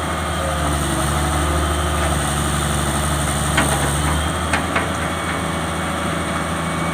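Excavator's diesel engine running steadily, with a few short sharp knocks about halfway through.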